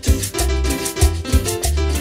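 Cumbia band playing an instrumental passage: keyboard bass line and chords, with timbales and congas keeping a steady beat.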